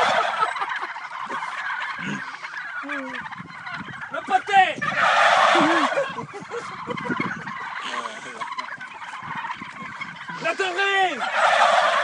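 A large flock of domestic turkeys gobbling in chorus, the whole flock erupting together in loud bursts three times: near the start, about five seconds in, and near the end.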